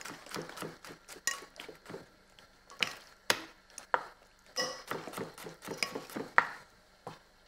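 A metal spoon scraping and clinking in a glass mixing bowl as meat is stirred through a marinade. Later, a kitchen knife taps on a wooden chopping board, chopping garlic cloves.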